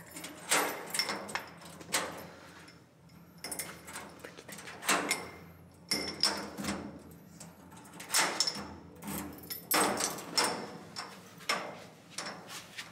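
Hotel room door being unlocked with a key and opened: a string of metal clicks and knocks from the key turning in the lock and the lever handle, with thumps and rustles of bags as it swings open.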